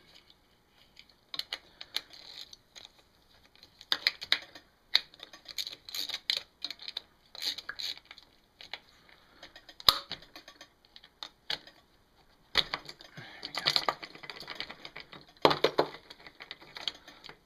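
Irregular metallic clicking, tapping and scraping as the camshaft is worked loose by hand and slid out of a Honda ATC110 cylinder head, with one sharp click about ten seconds in and a denser rattle near the end.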